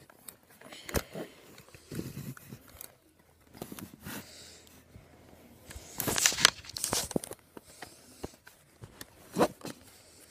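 Handling noise from a phone camera being moved and propped up: rustling and rubbing against couch fabric with scattered knocks, louder rustling about six seconds in and a sharp knock near the end.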